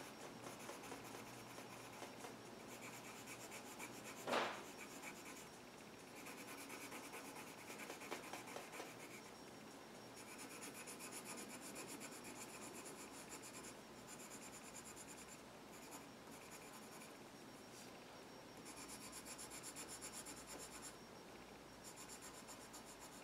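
Faint scratching of a yellow coloured pencil shading on paper, in stretches of quick back-and-forth strokes as petals are filled in. One short sharp knock about four seconds in.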